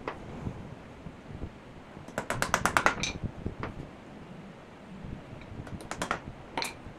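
Wooden deck-chair parts knocking together as the curved top rail is fitted onto the side legs: a quick rattling run of clicks a couple of seconds in, and a shorter run near the end.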